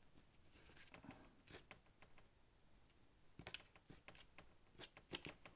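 Faint, irregular dabs and short scrapes of a paintbrush on paper as paint is worked into the picture.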